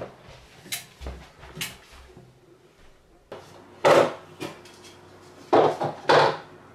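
Hard plastic knocks and clatter as ice packs are loaded into a plastic cool box, three loud bursts in the second half, along with a kitchen drawer sliding. Before that, a few faint clicks.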